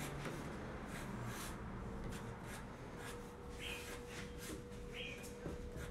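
Pen or pencil strokes on paper: short scratching strokes repeated as someone draws. Two short high chirps sound about three and a half and five seconds in.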